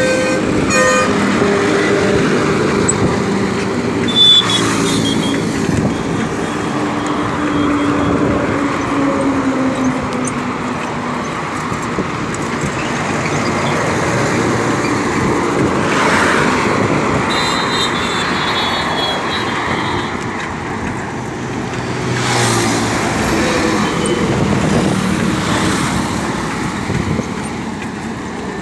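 Highway traffic: trucks and cars passing close with a continuous rush of engines and tyres, and short horn toots about four seconds in and again around eighteen seconds.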